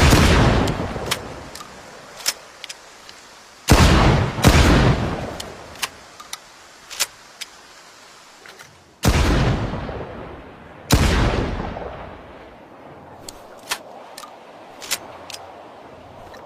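Shotgun blast sound effect: five loud sudden bangs, two of them in quick succession about four seconds in, each fading out over a second or two like an echoing boom, with small sharp clicks in between.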